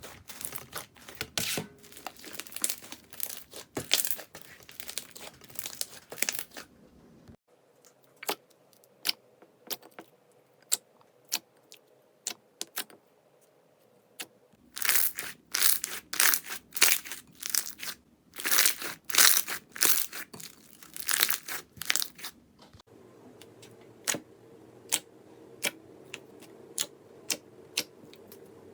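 Slime being pressed, stretched and pulled apart close to the microphone: sticky crackling, sharp pops and tearing sounds. Dense runs of crackles come near the start and again in the middle, with scattered single clicks between.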